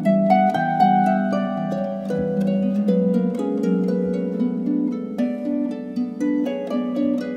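Background music: a gentle melody of quick plucked notes over held lower tones, with a new note every fraction of a second.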